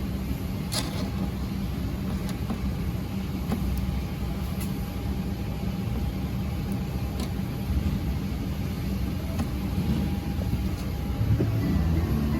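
Steady low rumble of a moving vehicle heard from inside the cabin, with a faint steady hum and a few light clicks.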